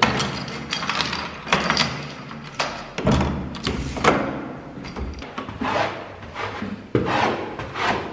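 A key turning and rattling in an apartment door lock, with a run of sharp clicks and knocks. About halfway through, a sneaker is scuffed back and forth on a coir doormat several times.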